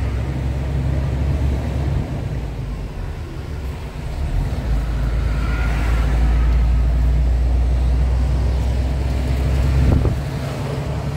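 Diesel engine of a FAW JH6 truck running as the truck drives, a steady low drone that eases off about two seconds in, swells again after about four seconds and falls back near the end.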